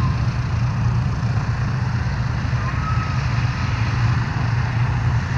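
Boeing B-29 Superfortress's four Wright R-3350 radial engines running steadily at low power as the bomber taxis on the ground, a deep pulsing drone.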